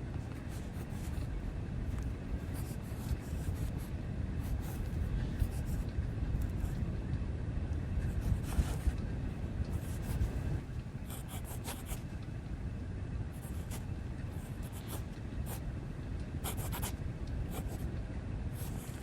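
Handwriting on paper: a pen scratching in many short, irregular strokes over a steady low background rumble.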